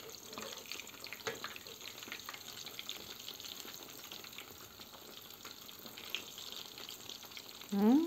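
Battered hake fillets frying in hot oil in a pan: a steady, crackling sizzle.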